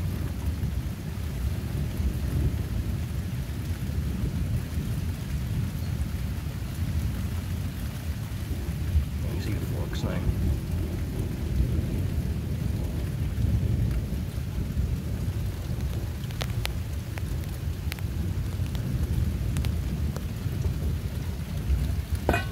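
Thunder rumbling almost without a break over steady rain, with a few sharp ticks about two-thirds of the way through.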